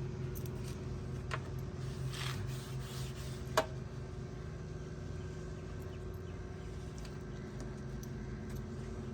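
A steady low hum, with a few light clicks and a short soft hiss about two seconds in.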